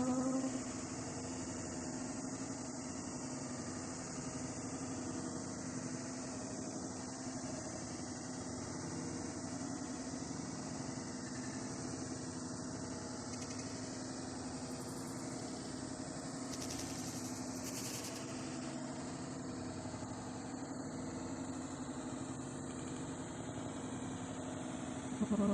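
A steady machine hum with one constant low tone, unchanging throughout.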